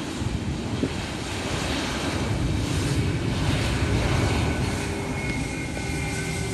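Jet engines of a Spirit Airlines Airbus A320-family airliner rolling along the runway: a steady engine roar that builds to its loudest a few seconds in and then eases slightly.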